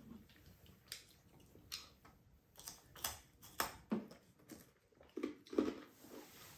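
People chewing pizza with their mouths open: short, irregular wet clicks about one or two a second.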